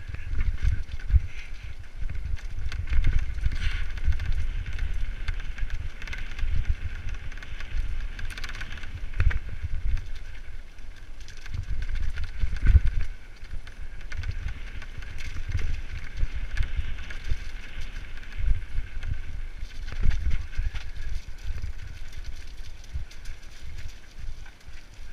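Mountain bike riding fast down a rocky, muddy track, picked up close by a camera mounted on the bike or rider: tyres rumbling and knocking over loose stones, with the bike rattling and jolting throughout.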